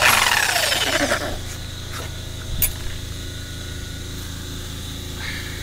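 Handheld cut-off tool spinning down after a brief burst: a loud whine that falls steadily in pitch over about a second, under a steady low hum. A single sharp click comes about two and a half seconds in.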